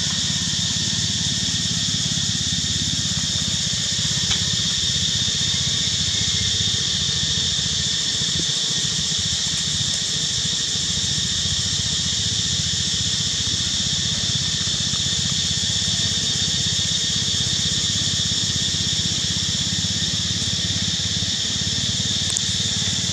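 Steady, high-pitched insect chorus droning without a break, over a low, even rumble.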